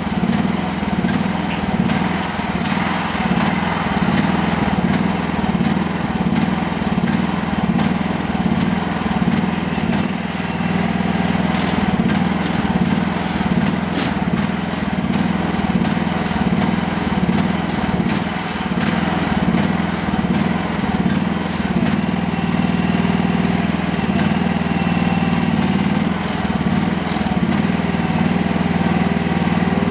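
Mini excavator's diesel engine running steadily, with a slow regular swell in its note that evens out over the last several seconds.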